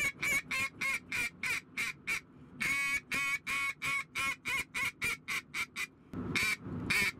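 Echo Pure Meat single-reed duck call blown in strings of short quacks. After a brief pause about two seconds in comes one longer quack followed by a fast run of shorter quacks that get quieter, like a hail call, and a few more quacks near the end.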